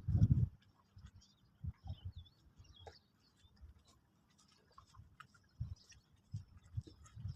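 Small birds at a feeder: irregular taps and knocks of pecking and landing, with short, high chirps and twitters scattered among them. The loudest knock comes right at the start.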